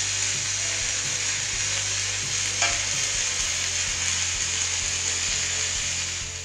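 Stick (MMA) welding arc from a UNIMIG VIPER 180 AC/DC running a flux-coated electrode on DC electrode positive: a steady crackling sizzle over a low hum, fading out near the end.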